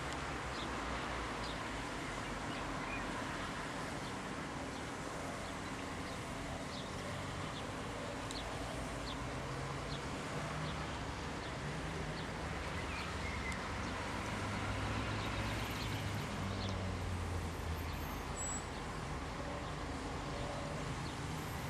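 Steady rumble of distant road traffic, a little louder around the middle, with short faint chirps of birds or insects over it.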